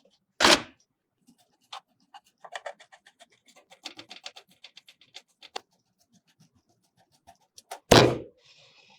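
PC hardware being handled during assembly: a loud thunk about half a second in, a run of light clicks and taps in the middle, and a second loud thunk near the end.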